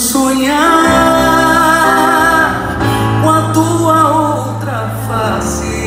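Live band music with a wordless sung line, held and wavering with vibrato, over sustained accompaniment.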